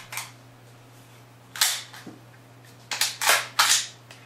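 Sharp metallic clacks from the Leader Dynamics T2 Mk V rifle's action as it is worked and closed up after reassembly: one near the start, a loud one about a second and a half in, and a quick run of three near the end.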